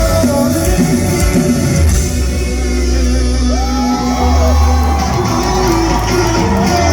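Live rock band playing in a concert hall: heavy bass and drums under guitars, with a voice singing and shouting over the music.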